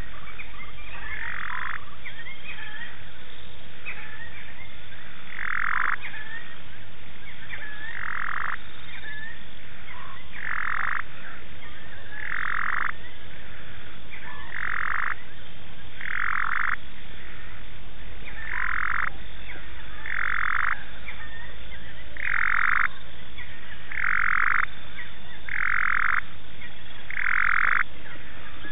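Frogs calling: one loud, rasping call, under a second long, repeats about every two seconds, with fainter short, rising calls of other frogs in between.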